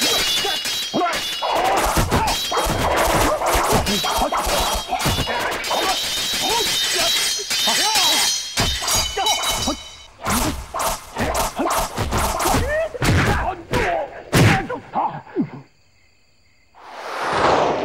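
Sword-fight sound effects: rapid blade clashes with metallic ringing, swishes and blows, coming thick and fast before stopping abruptly. After a short silence a single whoosh swells and fades near the end.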